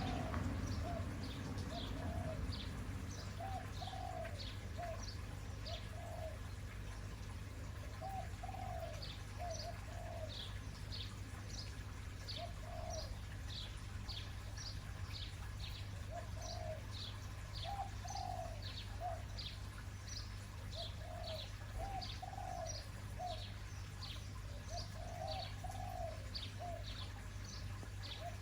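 Birds calling: a steady run of short, high, falling chirps, a few each second, over repeated short lower calls that come in small groups. A steady low hum runs underneath.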